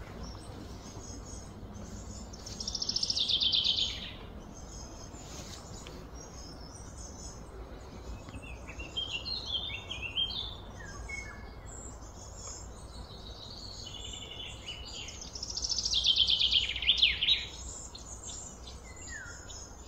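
Outdoor birdsong over a steady background hiss: two loud, fast high trills that swell in volume, a few seconds in and again near the end, with scattered short chirps between them.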